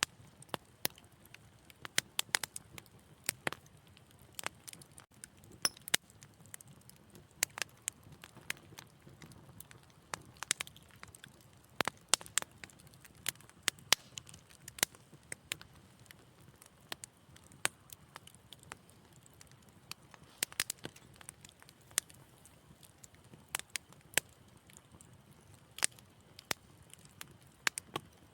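Wood fire in a fireplace crackling, with irregular sharp pops and snaps a few times a second over a faint low rumble of the flames.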